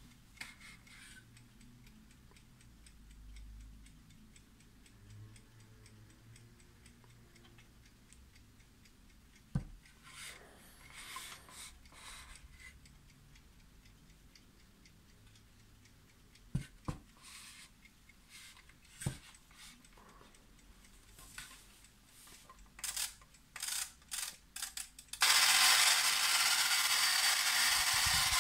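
Rhythm 51143 alarm clock ticking softly, with clicks and knocks as it is handled and turned over. About 25 seconds in its alarm goes off: a loud, continuous ringing buzz, much louder than everything before it.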